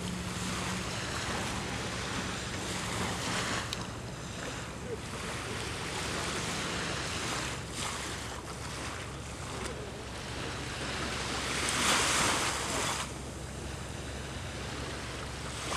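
Small waves washing onto a sandy beach, with wind buffeting the microphone; the hiss swells and ebbs, with its loudest rush about three quarters of the way through.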